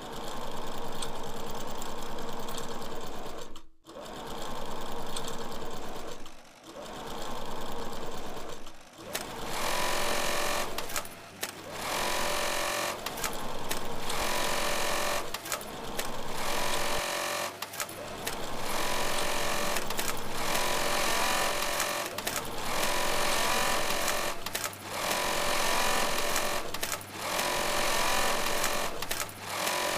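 Sewing machines running in runs of two or three seconds with short stops between them. About nine seconds in the sound becomes fuller and nearly continuous, broken only by brief dips.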